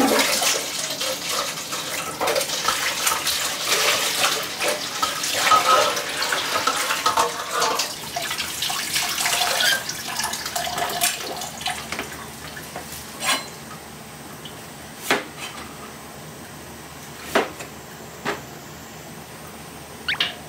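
Kitchen tap running into a sink with splashing water for about twelve seconds, then it stops; after that, a few sharp knocks of things being set down.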